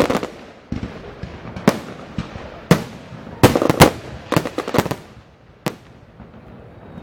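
Aerial fireworks exploding: an irregular string of sharp bangs, some in quick pairs, each with an echoing tail and a low rumble between, loudest around the middle and stopping about a second before the end.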